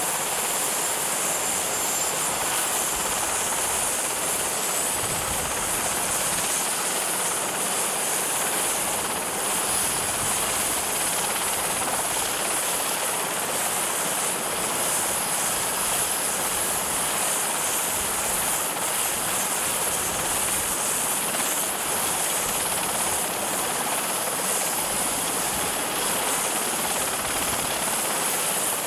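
Sikorsky VH-3 Sea King helicopter idling on the ground with its turbine engines running: a steady high whine over a constant rushing noise.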